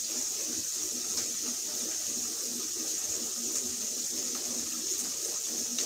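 Ground beef frying in a pan: a steady sizzle with a few small pops.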